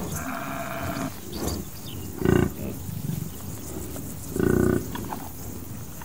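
African buffalo giving two short, deep grunts about two seconds apart. A higher-pitched drawn-out call fills the first second, and a faint chorus of insects chirrs throughout.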